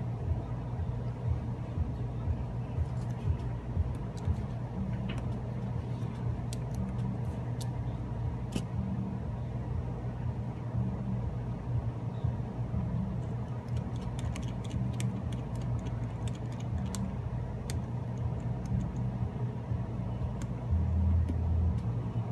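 Small clicks and ticks of a precision screwdriver and tiny screws against a phone's frame as the screws go back in, scattered and busiest in the second half, over a steady low hum.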